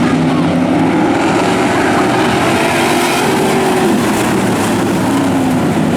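A field of street stock race cars running hard on a dirt oval: several engine notes overlapping and rising and falling as the cars pass.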